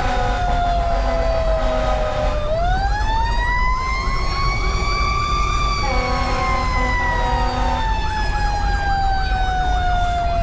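Siren of a 2010 Pierce Velocity fire engine sounding on the run, heard from inside the cab: its pitch sinks slowly, winds up over about three seconds, then slowly winds down again. Underneath runs the steady drone of the truck's Detroit Series 60 diesel.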